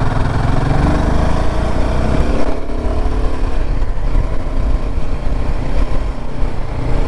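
Royal Enfield Himalayan 450's single-cylinder engine accelerating, its pitch rising for the first couple of seconds, then a gear change and a steadier run at about 55 km/h, with wind rushing over the microphone.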